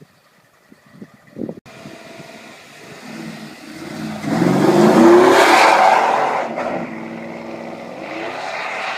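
Chevrolet Avalanche pickup's V8 engine revving with the wheels spinning in snow during a burnout. The revs climb about four seconds in and are loudest for a couple of seconds, then hold steadier until the sound cuts off near the end.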